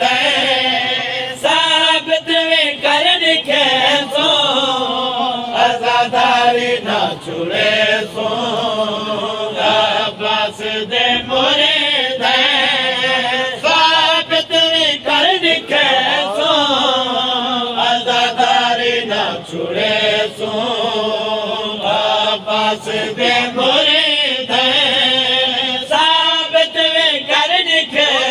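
Men chanting a noha, a Shia mourning lament, with group voices carrying the melody together. Bursts of sharp rhythmic slapping come in several times.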